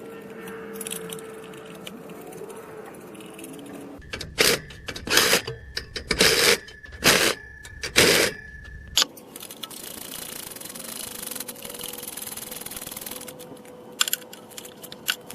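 Hand tools and parts clicking and rattling while engine wiring and components are refitted. In the middle come about six loud, short rasping bursts in quick succession.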